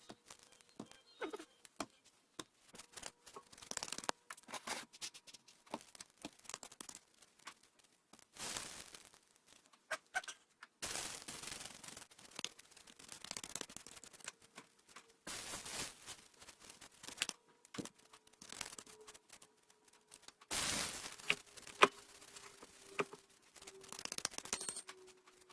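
Kitchen work at the stove: irregular clicks and scrapes of a spatula and pan, with stretches of hiss, as masa sopes cook and are turned in a hot pan.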